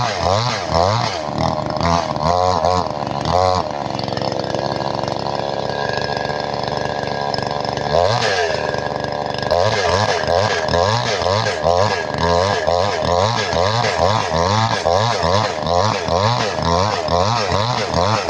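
Newly bought chainsaw running loud, its engine pitch rising and falling rapidly over and over. In the middle it holds at steady high revs for about four seconds, then dips and goes back to revving up and down.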